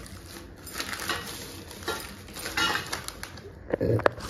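Kitchen dishes and utensils clinking and knocking as they are handled, a scatter of separate knocks with the loudest coming shortly before the end.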